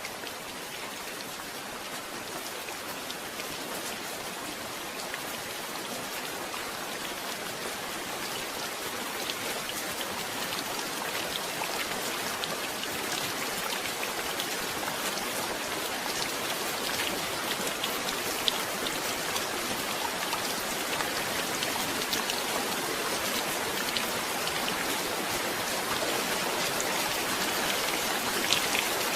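Steady rain falling, with many small drop ticks on a surface, growing gradually heavier.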